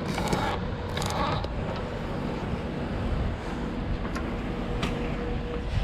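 Steady low background rumble, with two brief hissing rustles in the first second and a half and a faint steady hum coming in about three and a half seconds in.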